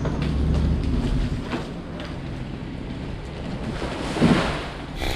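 Low rumble with wind noise on the microphone, swelling briefly near the end.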